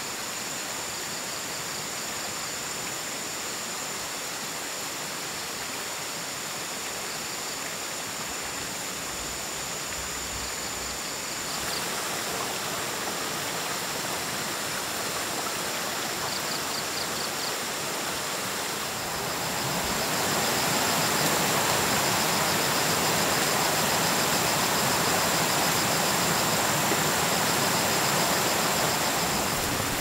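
Shallow stream running over rocks: a steady rush of water, louder about a third of the way through and louder again about two-thirds through.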